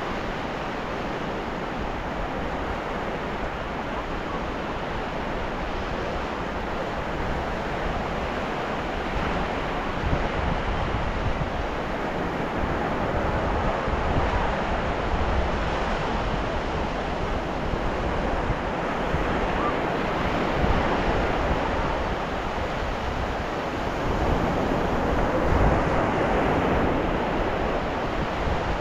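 Ocean waves breaking and washing on a beach: a continuous surf wash that swells louder every few seconds as waves come in.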